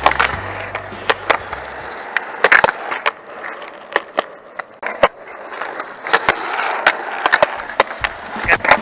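Skateboard wheels rolling on smooth concrete, broken by a dozen or so sharp, irregular clacks of the board's tail and deck striking the ground as flat-ground tricks are popped and landed.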